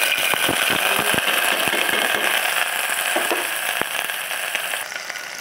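Chopped onion and garlic sizzling loudly in hot oil in a steel pressure cooker, with scattered crackles and pops. The sizzle eases a little near the end.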